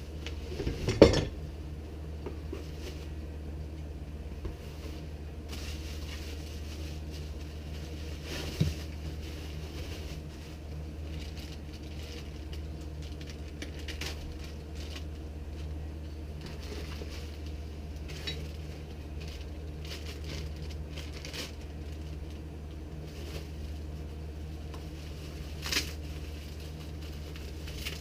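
Scattered clinks and knocks of a boxed cajon pedal and its packing being handled during unboxing, the loudest about a second in, over a steady low hum.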